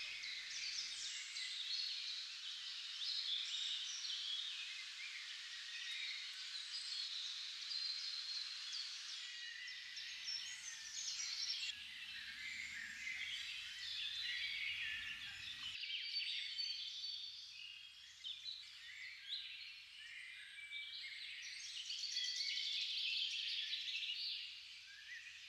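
Many birds calling and chirping together, a busy, continuous chorus of short high notes and trills; the background shifts abruptly about sixteen seconds in.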